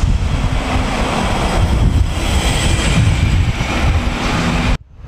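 A diesel coach driving past close by, its engine and tyre noise swelling as it passes, with wind buffeting the microphone. The sound cuts off abruptly near the end.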